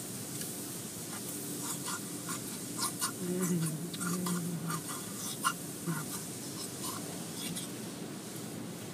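Automatic tunnel car wash running, heard from inside a waiting car: a steady hiss of spray and machinery with many small ticks and taps scattered throughout. A brief low hum rises over it from about three to five seconds in.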